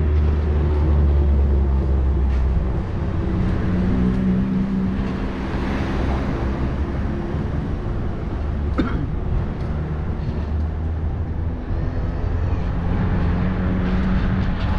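Car engine and road noise while driving, a low engine hum that eases off about two and a half seconds in and strengthens again near the end, with one short sharp sound about nine seconds in.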